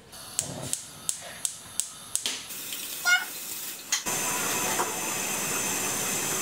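A run of sharp clicks, then from about four seconds in a steady sizzle: hot oil and protein pancake batter frying in a non-stick pan on a gas hob.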